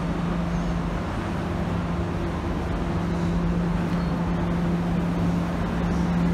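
Steady drone of a car ferry's engines and onboard machinery: a constant hum under an even rushing noise.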